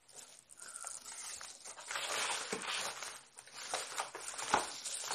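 Boxed retail fans being handled and set aside: rustling and scraping of the packaging, with a sharp knock a little before the end.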